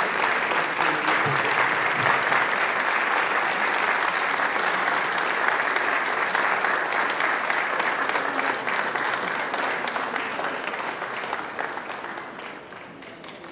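Audience applauding, a dense steady clapping that dies away over the last few seconds.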